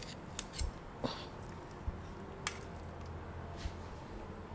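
A few faint, scattered clicks and taps of metal tongs and a wooden spatula against a roasting tray while a roast leg of lamb is lifted out, over a low hum.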